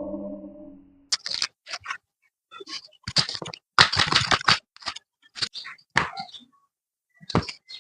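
Kitchen utensils at work on food: a series of short scrapes and clicks in irregular groups, with a brief ringing at the start that fades within about a second.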